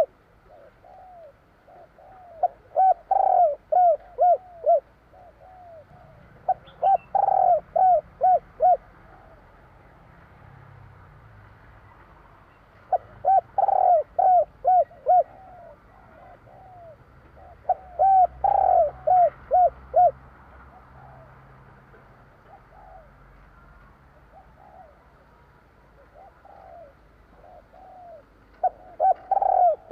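Spotted dove (tekukur) cooing: about five phrases of several quick, arching notes, repeated at irregular intervals a few seconds apart.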